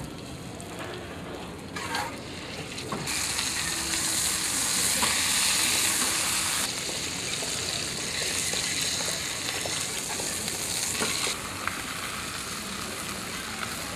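Food sizzling on a hot metal griddle plate. The loud hiss sets in about three seconds in, eases a little past the middle, and drops back sharply near the end.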